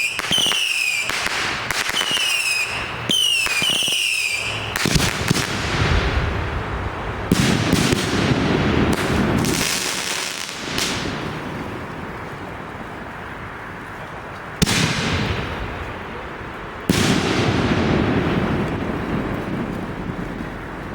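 A firework finale going off in rapid succession. In the first few seconds whistling fireworks shriek with repeated falling pitch. Then comes a continuous barrage of bangs and crackling, with sharp loud reports about seven seconds in and again around fifteen and seventeen seconds.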